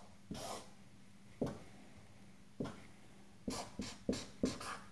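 Marker writing on a whiteboard: a few separate scratchy strokes, then a quick run of short strokes in the last second and a half.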